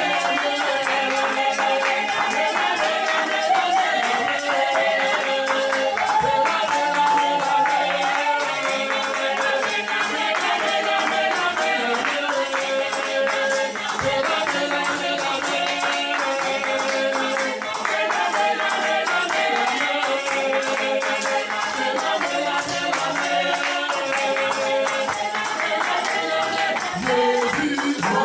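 Music: a sustained, gliding melody over a steady, fast percussion beat.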